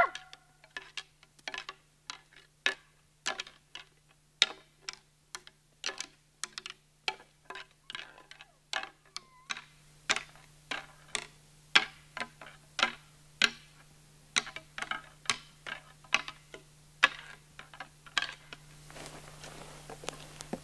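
Footsteps through dry forest litter, with twigs and dead branches snapping and crunching underfoot in irregular sharp clicks about two or three a second.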